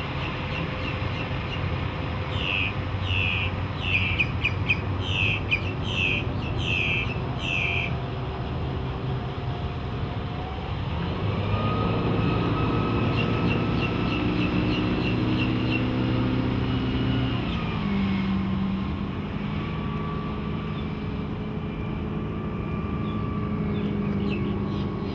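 Volvo Penta 5.0GL V8 sterndrive engine running at low revs. It revs up about eleven seconds in, holds the higher revs for several seconds, then throttles back down a little before eighteen seconds. A string of short high chirps repeats in the first eight seconds.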